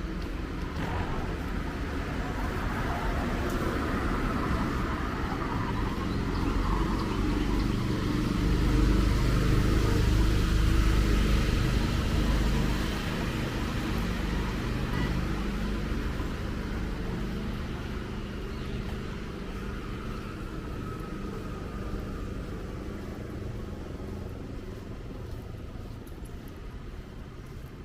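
A road vehicle passing by, its engine and tyre noise growing louder to a peak about ten seconds in, then slowly fading away.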